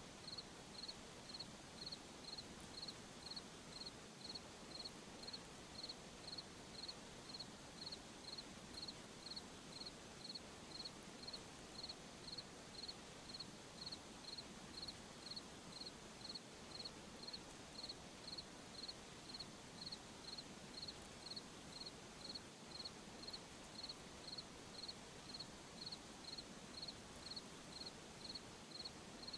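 A cricket chirping faintly at a steady, even rhythm, about three high chirps every two seconds, over a faint steady background hiss of night ambience.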